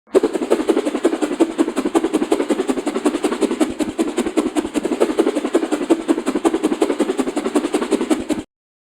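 Whoosh sound effect: a continuous rapid swishing with a fast, even pulsing, like something whirled round and round, lasting about eight seconds and cutting off abruptly near the end.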